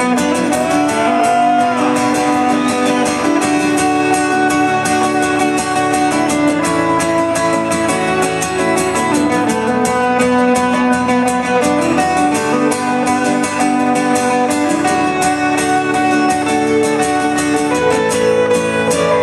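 Live music: an instrumental break of steadily strummed guitar between sung verses.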